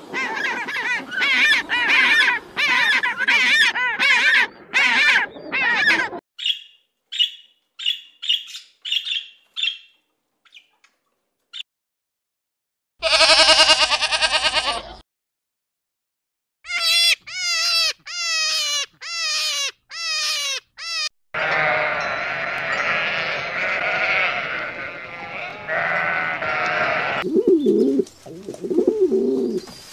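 A succession of animal calls. Penguins call over one another at first. After a quiet gap a goat bleats loudly about halfway through, more animal calls follow, and pigeons coo low near the end.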